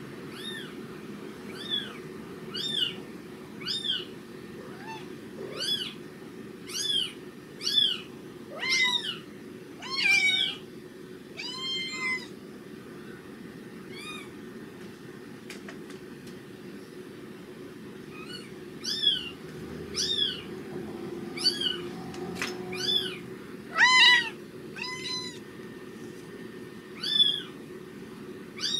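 A very young kitten's high-pitched squeaks, played back through computer speakers. The short arched cries come roughly once a second, break off for several seconds in the middle, then start again, over a steady low hum.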